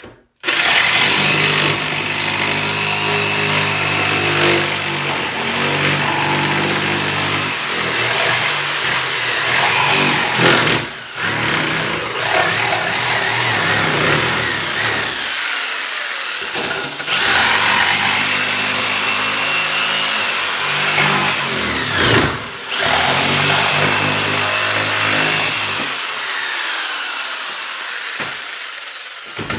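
Corded Ryobi jigsaw cutting through plywood, its motor running in long stretches. It stops briefly a few times, once for about a second and a half near the middle, then starts up again.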